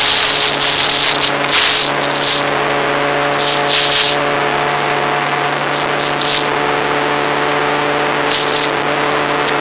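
Motorcycle engine running at a steady cruise, heard from the rider's seat, with wind rushing over the microphone and swelling in several short gusts.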